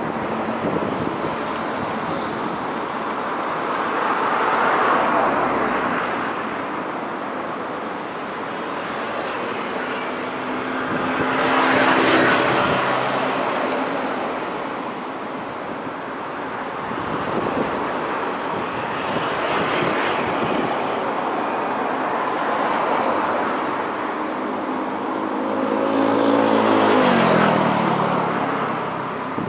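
Road traffic passing close by, vehicles going by one after another in rising and fading swells. The loudest passes come about twelve seconds in and near the end, where one vehicle's pitch drops as it goes past.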